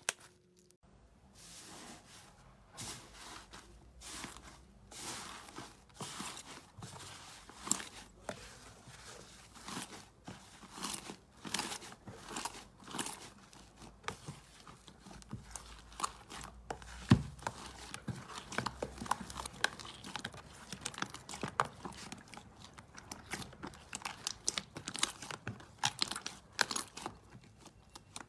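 Slime being squeezed, poked and stretched by hand close to the microphone: a dense, irregular run of crackling, crinkling pops and crunches, with one sharper snap partway through.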